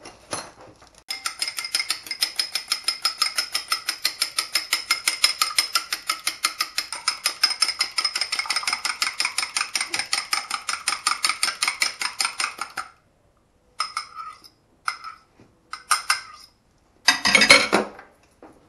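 A fork beating an egg in a small glass: a rapid, even clinking of metal against glass at about seven strokes a second, which stops abruptly after about twelve seconds. A few short knocks follow, with a louder knock and rustle near the end.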